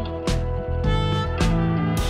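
Background music with a steady beat, a hit about every half second over bass and sustained tones.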